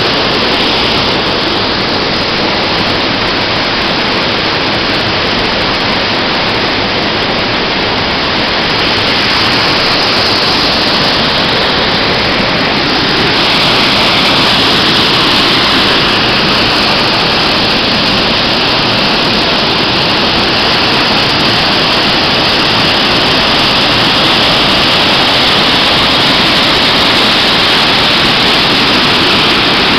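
Waterfall pouring: a loud, steady rush of falling water, growing a little louder about halfway through.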